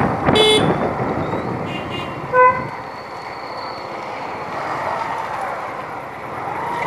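Short vehicle horn toots in traffic: a loud toot about half a second in, a fainter high beep near two seconds, and another loud toot about two and a half seconds in. Steady road and wind noise from the moving bike underneath.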